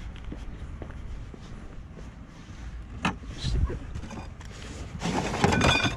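Items in a curbside trash pile being handled: a knock about three seconds in, then a louder clatter of wood and plastic pieces being shifted near the end, over a low rumble.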